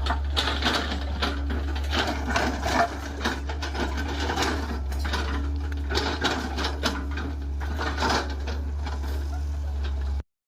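Heavy digging machine at work: its engine running steadily under rapid mechanical clattering and clanking. The sound cuts off suddenly near the end.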